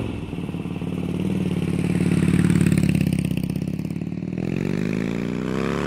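Harley-Davidson Sportster 1200 Custom's 1200cc Evolution V-twin running with a pulsing beat, then revving up with a rising pitch near the end.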